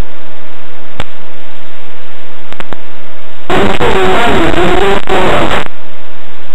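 Loud, distorted static from a recording fault. It cuts in suddenly and stays pinned at full level, with a harsher, rougher stretch of about two seconds starting some three and a half seconds in.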